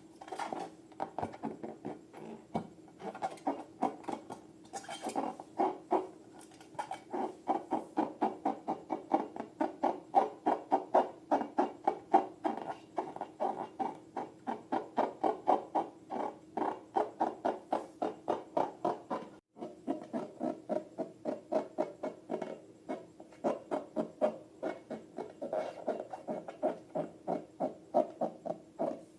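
Slime being squeezed and poked by hand: a continuous run of short, wet squelches, about three to four a second.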